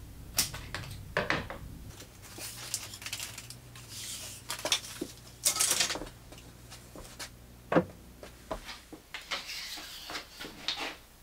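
Workbench handling noise: irregular clacks and knocks as thin plywood strips and tools are picked up, knocked together and set down on a wooden bench, with one sharper knock past the middle. Near the end, a rustle as a cable is unwound.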